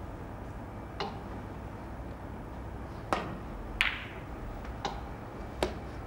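Snooker cue and balls clicking: five sharp clicks of cue tip on cue ball and ball knocking against ball, spread unevenly, the loudest two near the middle, over a low steady background hum.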